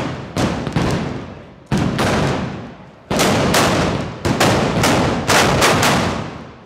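Black-powder muzzle-loading guns (festival arquebuses/blunderbusses) firing blank charges in rapid, irregular volleys, a dozen or so loud shots echoing down a street, tailing off near the end.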